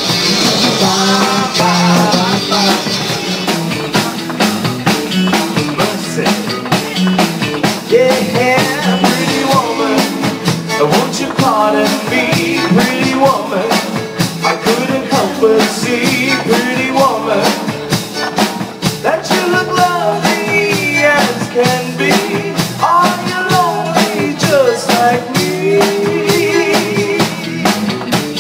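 Live band playing a song with a steady drum-kit beat, a wavering lead melody running over it.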